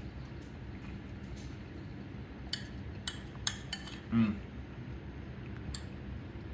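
Metal spoon clinking against a ceramic bowl while scooping food, a run of sharp clinks from about two and a half to four seconds in and one more near the end, over a low steady room hum.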